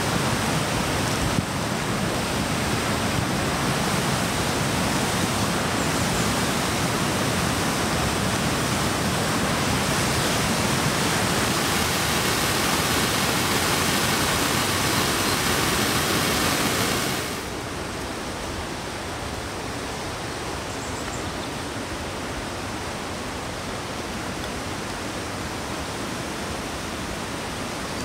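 Whitewater creek rushing over boulders in a cascade, a steady hiss of water; about seventeen seconds in it drops abruptly to a quieter, duller rush.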